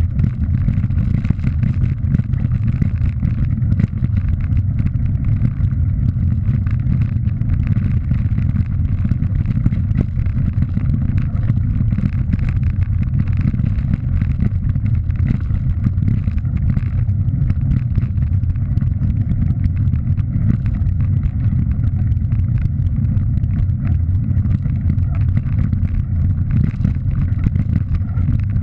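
Ride noise from a bike rolling down a gravel track: a steady low rumble of wind buffeting the camera's microphone and tyres running over loose stones, with frequent small rattles and knocks from the bumps.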